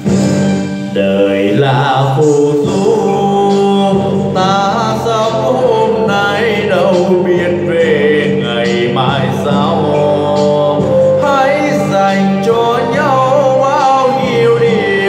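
A man singing a Vietnamese song into a handheld microphone over an instrumental backing track. His voice comes in about a second and a half in, over the steady accompaniment.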